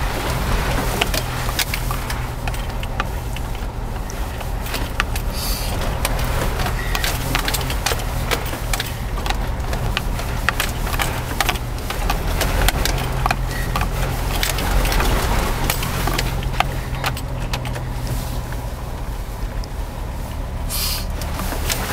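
Jeep Wrangler engine running steadily at low revs while driving off-road, with many knocks and rattles from the vehicle over rough ground. A brief rushing hiss comes near the end.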